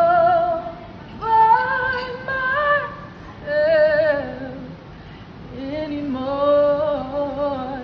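A female voice singing unaccompanied: four short phrases of held notes that waver and bend in pitch, with brief pauses between them.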